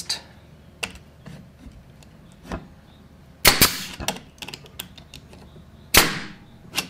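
Makita pneumatic nailer fired twice, about two and a half seconds apart, driving nails into a thin board. Each shot is a sharp bang with a short trailing hiss.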